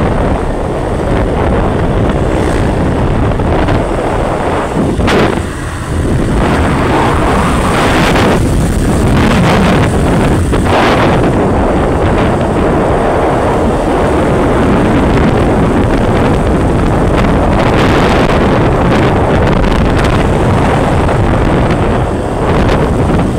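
Wind rushing over the microphone of a moving motorcycle, loud and steady, with the bike's road and running noise beneath.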